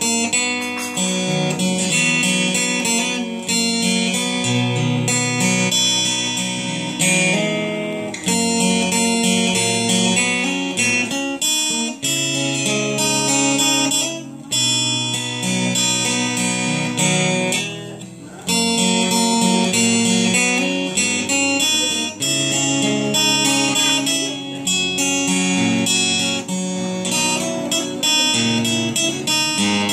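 Replica Epiphone acoustic-electric guitar strummed in chords, with two brief pauses around the middle.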